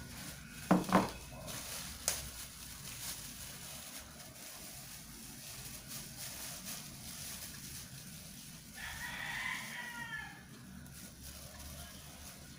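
A rooster crows once in the background about nine seconds in: a call of about a second and a half that falls in pitch at the end. Earlier, about a second in, come two sharp knocks, the loudest sounds here, as a glass mixing bowl is handled on the counter.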